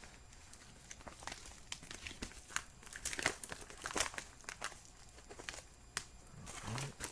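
Crinkling and tearing of a taped-up mail package being opened by hand: a string of irregular sharp crackles, busiest around the middle.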